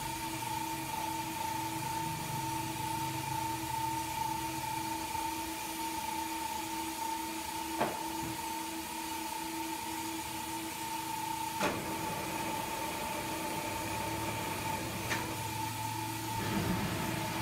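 Steady machine hum with two unchanging tones and a low drone that fades out partway and comes back near the end, broken by three short sharp clicks.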